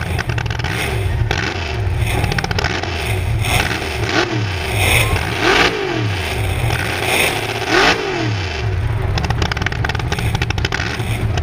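Mega truck's big-block Chevy V8 revving up and down several times, its pitch rising and falling every second or so, with the strongest revs in the middle.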